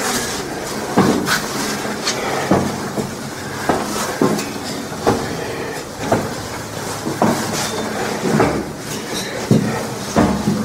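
Footsteps on steel grating steps, a clanking step about every second and a bit, at walking pace.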